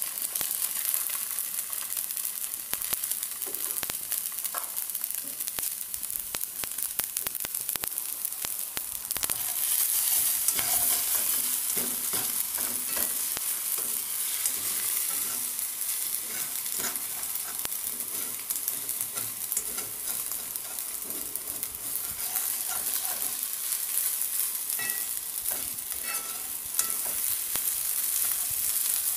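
Fried rice and a raw egg sizzling in a hot nonstick wok, stirred and tossed with a slotted spatula that scrapes and taps against the pan. The sizzle grows a little louder about ten seconds in.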